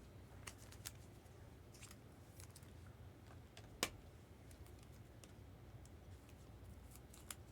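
Near silence with scattered faint clicks and rustles of trading cards being handled, one sharper click about four seconds in and another near the end.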